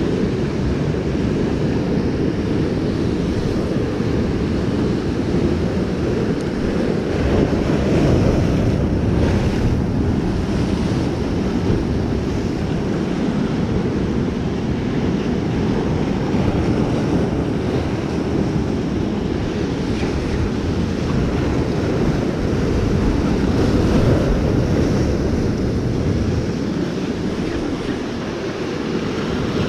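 Ocean surf breaking and washing over rocks, with wind buffeting the microphone: a loud, steady rush that swells twice.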